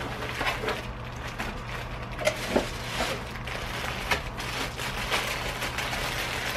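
Clear plastic packaging bag crinkling and rustling as it is handled and opened, with irregular crackles and a few sharper clicks about two and a half seconds in.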